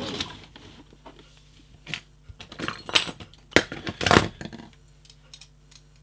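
Metal handcuffs being handled: a few scattered metallic clinks and knocks, the loudest about four seconds in.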